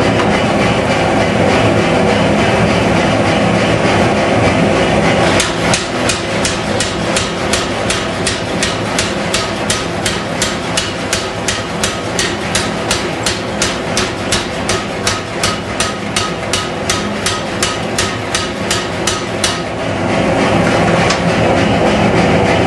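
A mechanical power hammer strikes a glowing Damascus billet in a steady, even run of blows, about three a second, starting about five seconds in and stopping a few seconds before the end. Under it the gas forge's burners keep up a steady roar.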